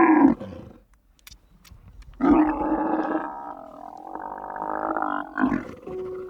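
A large animal calling: one call ends just after the start, then after a pause of about two seconds a longer, drawn-out call of about three and a half seconds.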